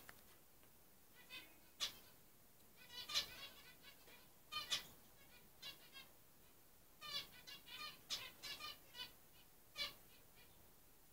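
Ornamental cage birds chirping in short, scattered bursts of high calls.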